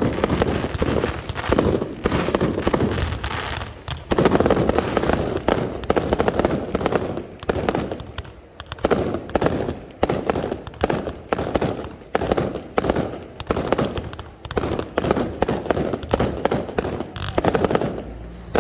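Fireworks display: a dense, rapid run of bangs and crackling reports, almost continuous, easing briefly at a few points before picking up again.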